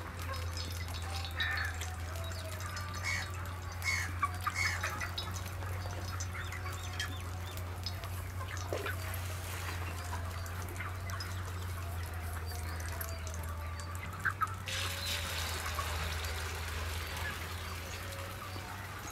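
Egg batter sizzling in hot oil in a flat pan, an even hiss that sets in about three-quarters of the way through. Before it come a few short higher calls or clinks, with fowl calling in the background over a steady low hum.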